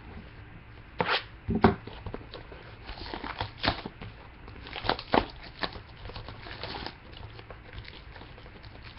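Trading card box and packs being handled and opened by hand: a handful of sharp knocks and taps on cardboard, with rustling and tearing of pack wrappers between them.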